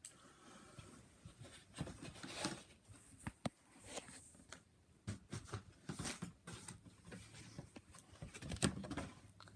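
Hands handling small Lego pieces and their packaging: irregular small clicks and taps mixed with brief rustles, a louder click cluster near the end.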